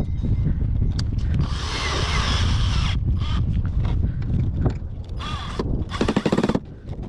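A handheld power tool, such as a drill-driver, run in three short bursts, the last with a fast rattle, among scattered clicks of metal work. Underneath, a steady low rumble of wind on the microphone.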